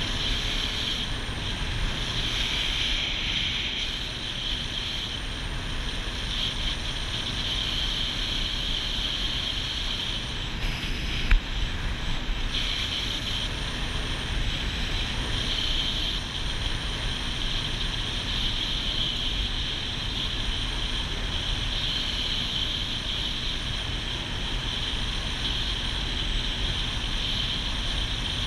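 Motorboat under way at speed: its engine running steadily under a constant rush of wind and water. A single sharp knock about eleven seconds in.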